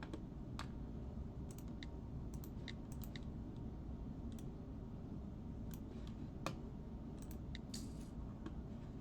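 Irregular light clicks of a computer mouse and keyboard in use, about a dozen, the sharpest about six and a half seconds in, over a steady low background rumble.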